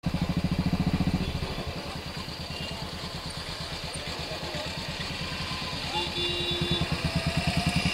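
Motorcycle engine running at low revs, its exhaust pulsing in a quick even beat. It is louder for the first second, eases off, then picks up again near the end.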